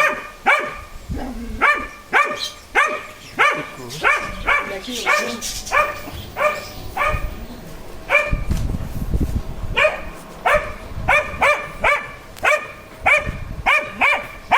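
A dog barking over and over at a snake, short sharp barks about two a second, with a short break in the middle before it carries on barking faster.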